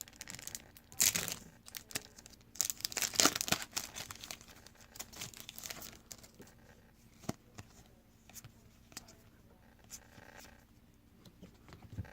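A trading card pack wrapper being torn open and crinkled, in bursts about a second in and again from about two and a half to six seconds in. Scattered small clicks and rustles of cards being handled follow.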